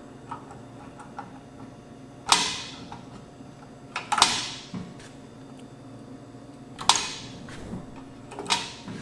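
Small metal parts and tools being handled during a receiver teardown: five sharp clinks and knocks, two of them close together, each ringing off briefly.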